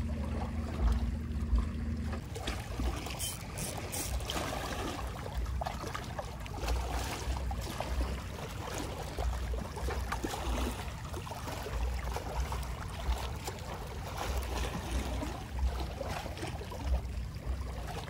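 Small, calm sea waves lapping and trickling along the shoreline, with irregular low rumbles on the microphone.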